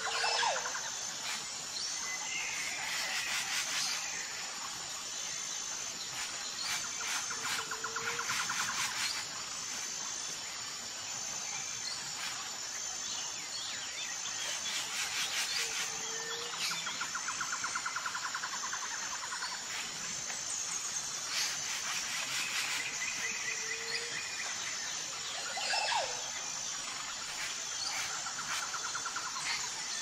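Natural ambience of several birds calling and chirping, with short rapid trills, over a steady high pulsing insect chirr. A short low call recurs every seven or eight seconds.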